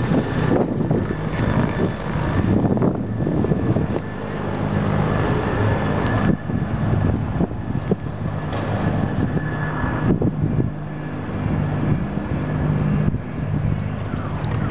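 Helicopter turbine running: a steady high whine over a low engine drone that grows stronger in the second half.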